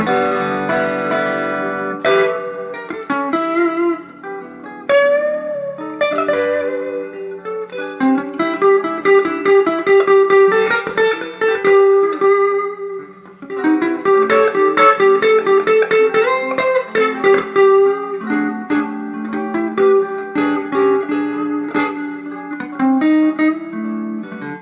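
Fender Telecaster electric guitar on its neck pickup, played through a tube amplifier: a lead line of picked single notes with a few sliding or bent notes, getting faster and busier about a third of the way in. The neck pickup gives a fairly flat, less bright tone than the Telecaster's twangy bridge pickup.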